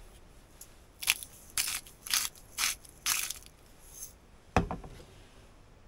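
Salt mill being twisted over a jug: five short grinding crunches, about two a second, followed by a single knock near the end.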